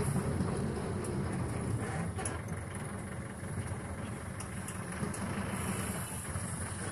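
Cab's engine and road noise heard from inside the moving car: a steady low rumble.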